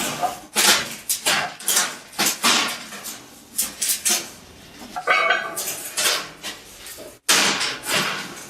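Steel pieces clanking and knocking in irregular strikes as a plasma-cut piece of plate is worked loose and handled.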